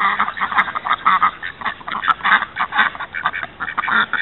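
A small flock of domestic ducks quacking over and over, many short quacks in quick succession and overlapping, as they are herded by a dog.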